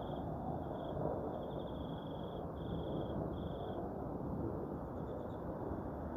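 A steady low rumbling drone in the open air, which the recorder hears as a roaring from the sky. Insects trill high in short repeated bursts over it, fading out about four seconds in.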